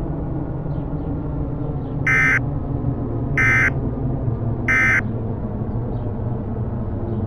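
Three short, identical buzzing data bursts about a second apart: the Emergency Alert System end-of-message (EOM) signal that closes an alert. They sound over a low steady drone.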